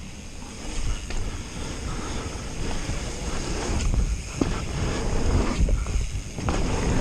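Mountain bike riding over wet dirt jumps: wind buffeting the helmet-camera microphone over the rumble of the tyres, with several sharp knocks and rattles from the bike over the bumps, growing louder as speed builds.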